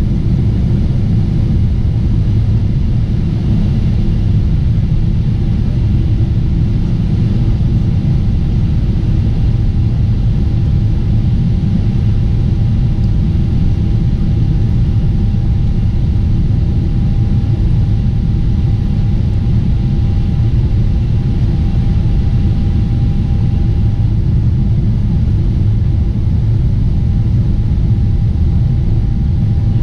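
Boeing 747-8 airliner in flight, heard from the cabin: a steady, loud low rumble of engines and airflow. A faint steady whine comes in several seconds in.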